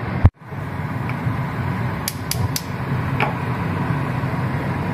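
Steady rushing noise at a gas stove with a burner on high, broken by a brief dropout near the start and a few light clicks about two seconds in.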